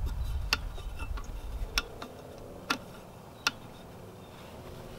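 Four sharp metallic clicks, about a second apart, with fainter ticks between them, as the unbolted lower unit of a 1981 Evinrude 7.5 HP outboard is rocked by hand to break it free of the midsection. A low rumble fades out over the first two seconds.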